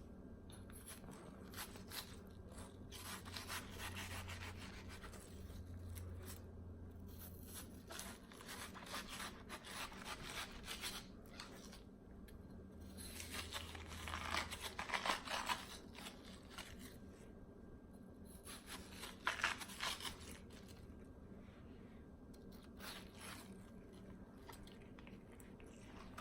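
Close-miked eating of juicy watermelon: crisp bites and wet chewing in irregular bursts, the loudest about halfway through and again a few seconds later.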